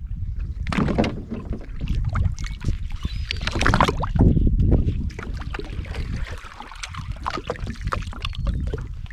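Sea water splashing and sloshing at the side of a boat as a hooked fish is drawn up to the surface, with stronger splashes about a second in and again around four seconds. A steady low wind rumble on the microphone runs underneath.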